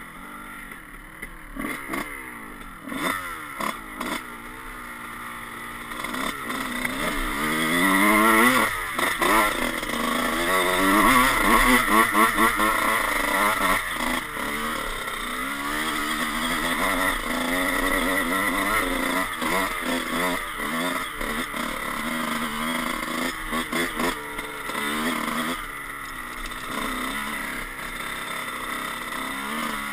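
Dirt bike engine ridden along a trail, blipped in short revs at first, then revving up hard about seven seconds in. It is loudest through the middle, with its pitch rising and falling as the throttle and gears change, and runs steadier toward the end.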